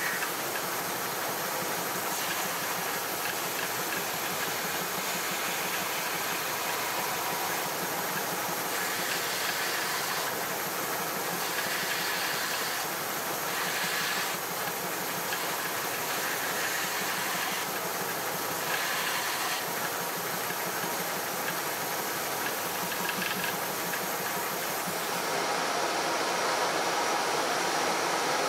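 A woodworking power tool running steadily. Its sound grows louder and harsher in short stretches every second or two, as a wooden workpiece is worked against it.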